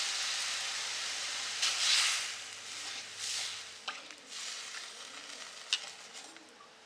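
Hot oil and fried spice paste in a metal kadhai sizzling as water is poured in. The sizzle is loudest about two seconds in, then fades while a slotted spatula stirs the thinning curry, with a few light taps against the pan.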